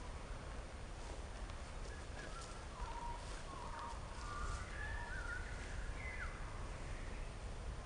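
Wild birds chirping and whistling in short, slurred phrases, with a steady low rumble underneath.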